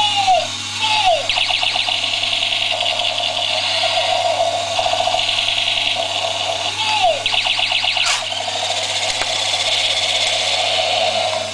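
Battery-powered toy walking robot running its electronic sound effects: falling zap tones at the start and again about seven seconds in, and a steady electronic tone with stretches of rapid rattling pulses.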